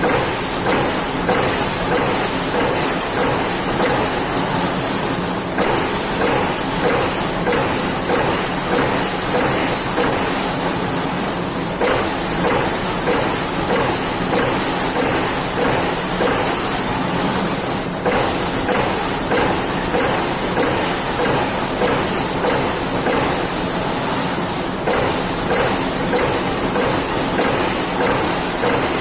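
Amada Pega 357 CNC turret punch press punching sheet metal: a fast, even run of repeated punch strokes over a steady high hiss.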